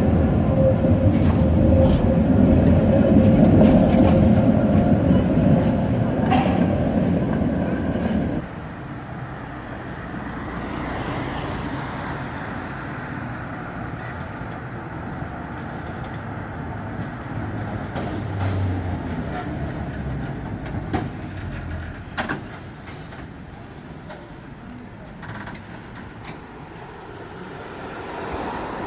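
Historic tram running on its rails with a steady squeal in the first eight seconds, loud and then cutting off suddenly. After that the tram runs much more quietly, with scattered clicks.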